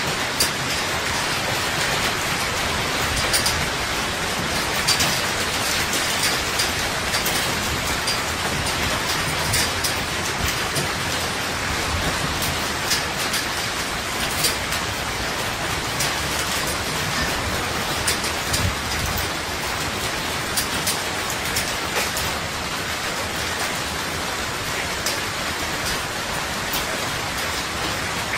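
Heavy rain falling steadily, with frequent sharp taps of drops striking hard surfaces.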